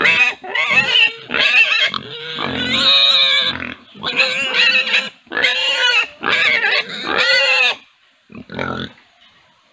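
Young pigs squealing: a run of short, high calls one after another, breaking off near the end for one last call.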